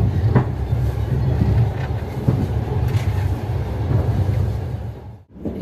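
Passenger train running: a steady low rumble of the wheels on the track, heard from inside a compartment car. It drops out abruptly for a moment near the end.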